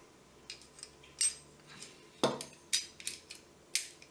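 Small steel pistol parts clicking and clinking against a Sig Sauer P226 frame as the decocking lever is fitted back on: about eight short sharp clicks, with a duller knock a little past halfway.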